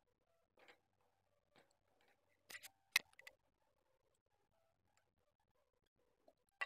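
A few light knocks and taps of a wooden spatula against a non-stick pan as a paratha is flipped over, the loudest knock about three seconds in; quiet after that.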